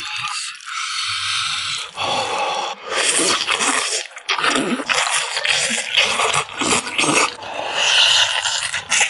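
Close-up eating sounds of a person gnawing a braised pig trotter: irregular wet slurps, sucks, smacks and chewing as the gelatinous skin and meat are bitten and pulled off the bone.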